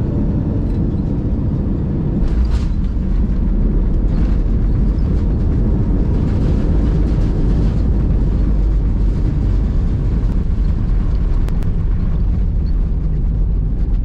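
Airbus A319 cabin noise on the runway after landing: a loud, steady low rumble of engines and wheels, growing louder about two seconds in.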